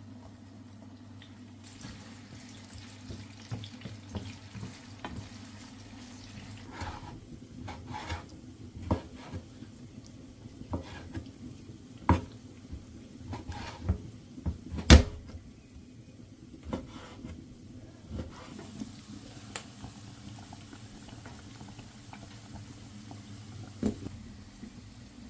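Kitchen work: a run of separate knocks and clatters, the loudest about fifteen seconds in, over a steady low hum.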